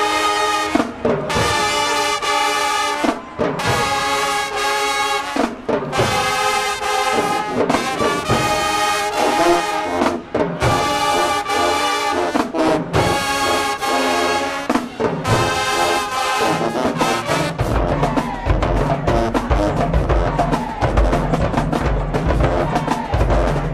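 High school marching band's brass section playing loud held chords in short phrases. About seventeen seconds in, the brass drops out and the drumline's bass drums take over with a steady beat.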